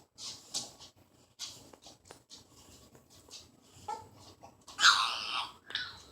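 Baby's odd, animal-like vocal noises: short breathy puffs, then a louder high-pitched squeal about five seconds in.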